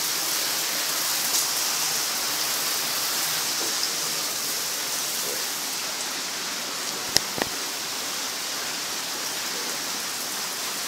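Spa experience shower spraying water steadily, with an even rain-like hiss that grows a little fainter after about six seconds. Two sharp clicks come close together a little past the seven-second mark.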